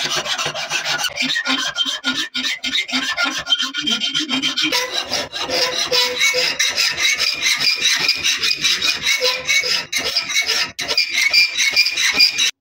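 Quick, repeated rasping strokes from a file or sandpaper worked back and forth by hand, shaping a kunai's handle.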